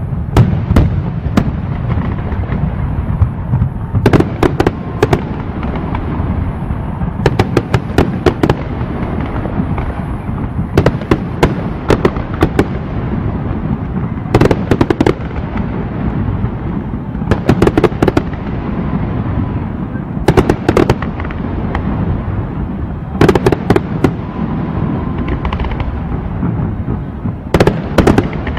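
Fireworks going off: clusters of sharp cracks and pops about every three seconds over a continuous low rumble.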